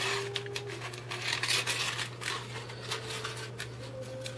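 Scissors cutting through thin aluminum foil in a run of short, irregular snips, the foil crinkling as it is turned in the hand, over a steady low hum.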